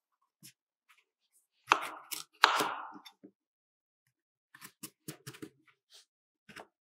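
Chef's knife cutting through green papaya on a bamboo cutting board: two loud cuts, each with a short fading tail, about two seconds in and under a second apart, then a quick run of light clicks and taps near the end.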